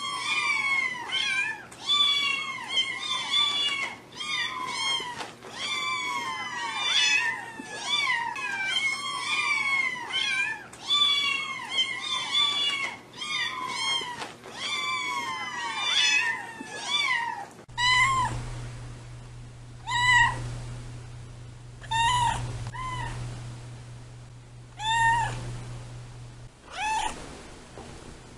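Several kittens mewing at once: high, overlapping calls that fall in pitch, coming in quick succession. About two-thirds of the way in the sound cuts to a single cat meowing about every two seconds over a steady low hum.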